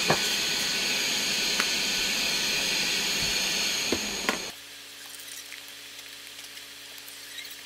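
Hot air rework station blowing a steady hiss with a high whine while reflowing solder on a circuit board, cutting off suddenly about four and a half seconds in. A few light clicks come just before it stops.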